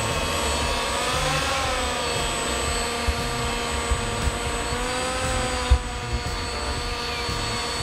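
Battery-electric drive of a large 1:6 scale RC model Riva Aquarama runabout running at speed, a steady motor and propeller whine that rises and falls slightly in pitch. A low rumble and a few soft knocks lie under it.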